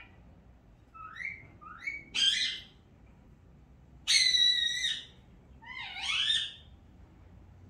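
An animal calls five times in short, separate squeaky notes, most of them rising in pitch. The longest and loudest, held at a steady pitch, comes about four seconds in.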